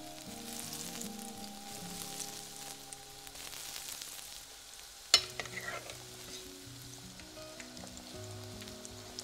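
Breaded mozzarella balls deep-frying in a pot of hot seed oil: a steady sizzle, with one sharp knock about five seconds in.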